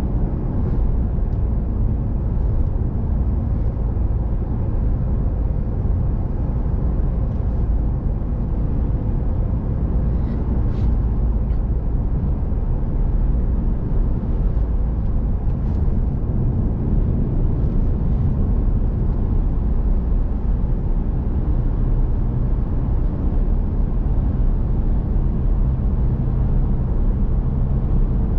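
Steady road and engine noise of a car heard from inside the cabin while driving, with a few faint ticks partway through.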